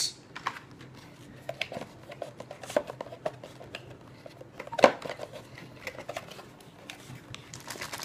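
Cardboard box and plastic packaging being handled and rummaged through: scattered light rustles and small clicks, with one sharper knock a little before the middle.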